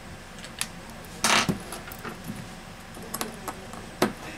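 Metal tweezers and small parts clicking and scraping against the opened smartphone's internals: a few sharp clicks and one louder short scrape about a second in.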